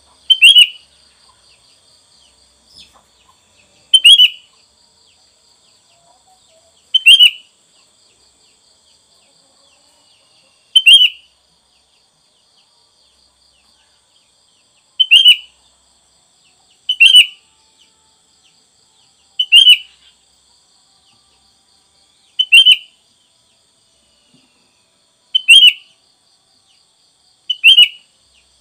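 Sooty-headed bulbul (kutilang) giving short, loud calls, one every two to four seconds, about ten in all.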